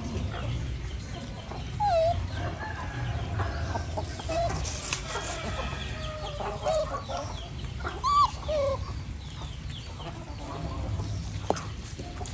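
Chickens clucking, with short rising-and-falling calls scattered throughout; the loudest come about two seconds and eight seconds in.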